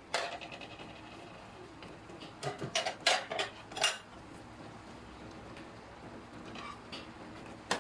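A metal cooking utensil clinking and scraping against the pan while the adobo is stirred, in a few sharp knocks, with a cluster of them between about two and a half and four seconds in.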